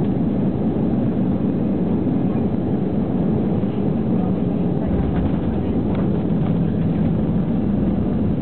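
Airliner cabin noise while landing: a steady rumble of engines and airflow, growing heavier in the low end from about five seconds in.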